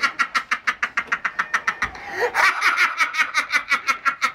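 Rapid high-pitched laughter in quick, even bursts of about eight a second, breaking off briefly about two seconds in and then carrying on.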